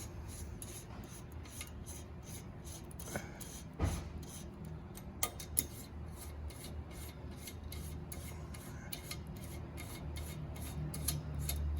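A 5 mm Allen key working the top bolts of a rotisserie oven's wishbone rack spine: light metal-on-metal scraping and ticking, with a few sharper knocks.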